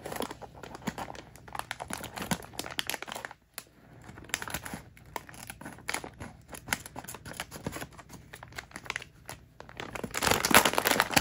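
Clear plastic packaging bag crinkling and rustling in the hands in dense, irregular crackles, louder near the end.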